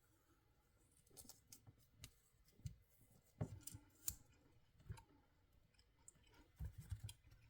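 Mostly near silence, broken by scattered faint clicks and soft knocks of small objects being handled.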